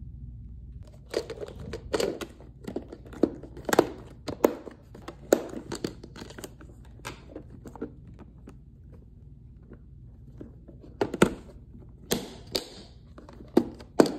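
Clear plastic divided snack box being handled and its hinged plastic lid closed and snapped shut: irregular sharp plastic clicks and knocks, starting about a second in, with some brief rustling.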